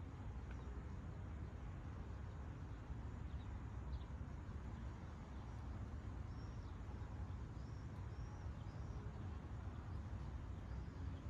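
Steady seaside ambience: an even, low wash of sea and wind noise with no distinct wave breaks. A few faint, short bird chirps come through, mostly in the second half.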